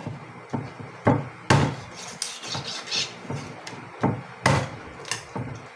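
Meat cleaver chopping chicken on a wooden chopping board: a series of sharp, irregularly spaced chops.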